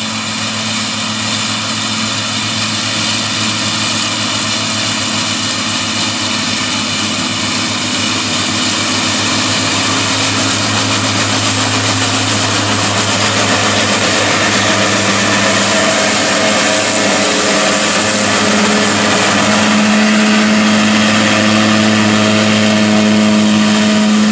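Tractor engine running under load as it pulls a SIP disc mower combination cutting grass, with the mower drive adding a steady whine. It grows louder over the first half as the rig approaches, then stays loud as it passes close by.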